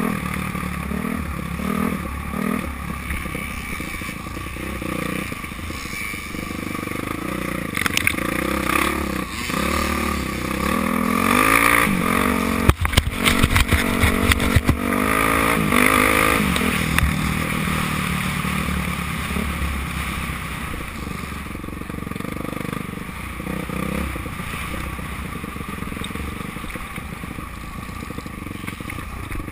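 Dirt bike engine running and revving up and down while riding a rough trail, heard from a camera mounted on the bike, with rattling and scraping. A run of sharp knocks and clatter comes about halfway through and is the loudest part.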